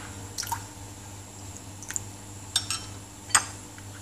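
A metal spoon clinking several times against a ceramic plate while stirring a thin flour batter, over a faint steady hum.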